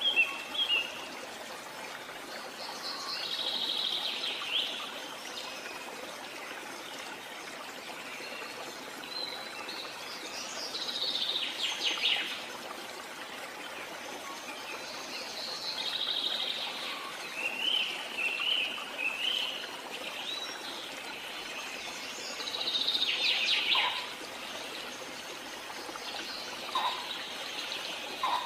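Songbirds singing short phrases every few seconds, some of them fast trills, over a steady background hiss.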